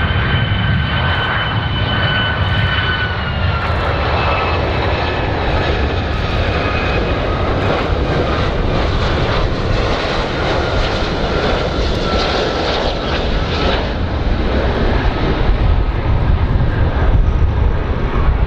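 Boeing 757-200 airliner's twin turbofan engines on landing approach: a steady rumble with a high engine whine that drops in pitch about three and a half seconds in and again about two-thirds of the way through as the jet passes.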